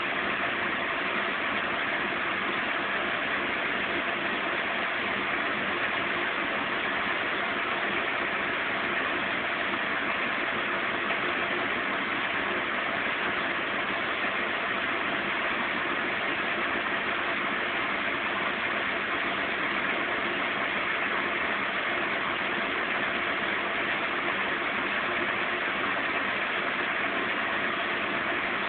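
Zanussi Z 630 washing machine in its long final spin at a steady speed of about 550 rpm: an even, unchanging whirring hum from the spinning drum and motor.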